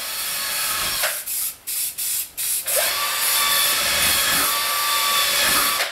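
Aerosol spray-paint can hissing: a few short bursts with brief breaks in the first two seconds or so, then one long, steady spray.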